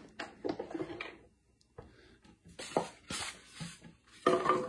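Scattered light clicks and rustles of hands handling a small plastic electric meal maker, its latch released and hinged lid swung open, with a louder knock near the end.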